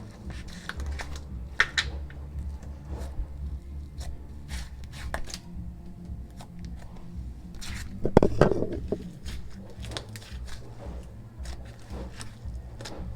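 Slime being squished and poked by hand, giving scattered small clicks and pops, with a louder squishing cluster about eight seconds in.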